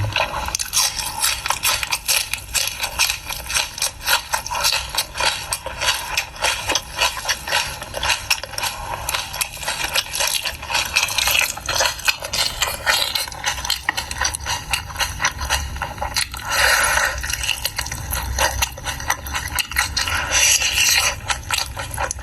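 Close-miked mukbang eating sounds of someone chewing pork: a dense, irregular run of mouth clicks and chewing noises.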